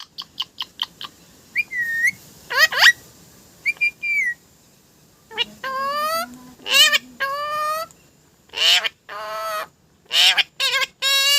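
Pet parrot calling: a few quick clicks, then whistled glides, then a series of longer pitched calls and rapid rattling calls.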